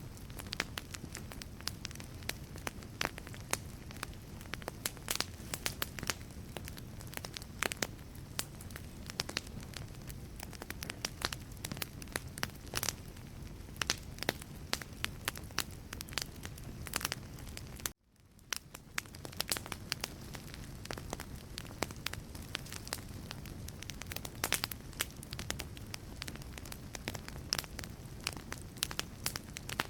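Wood fire burning in a fireplace, with frequent sharp crackles and pops over a steady low rumble and hiss. A little past halfway the sound cuts out abruptly and fades back in over about a second.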